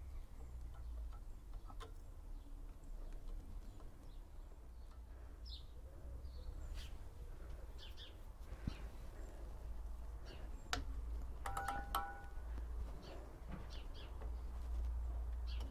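Scattered small metallic clicks of pliers working a drum-brake shoe hold-down spring and cap onto its pin, with a cluster of louder clicks about eleven to twelve seconds in. Faint bird chirps and a low steady rumble sit underneath.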